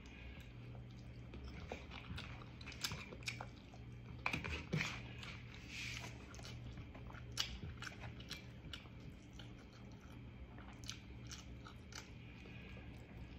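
Close-up eating sounds of pompano fish eaten by hand: chewing with scattered wet mouth clicks and smacks, a little louder about four to five seconds in.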